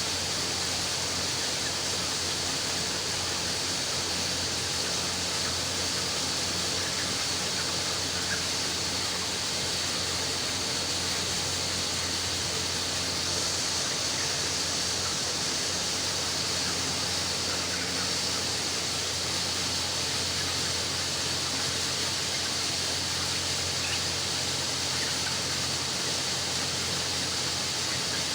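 Steady poultry-house background noise: an even hiss with a constant low hum beneath it, and a few faint scattered ticks.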